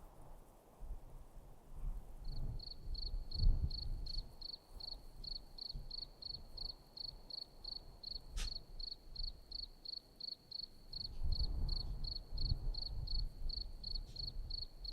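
A cricket chirping steadily, a high pulsed note about three to four times a second, starting about two seconds in, over a low rumble.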